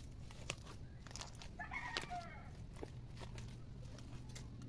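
A chicken calls once, briefly and faintly, about one and a half seconds in, over scattered faint clicks.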